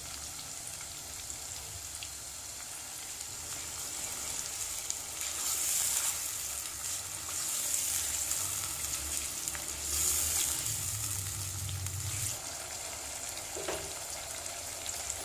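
Chicken pieces sizzling in hot oil and freshly added yogurt in a nonstick pot, stirred with a spatula. The sizzle is steady, with two louder spells about five and ten seconds in.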